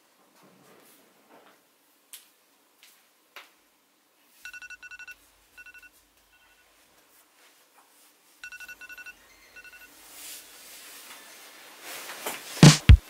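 An electronic wake-up alarm beeping: two clusters of quick, high beeps about four seconds apart. Near the end a hiss swells and music with heavy drum hits comes in.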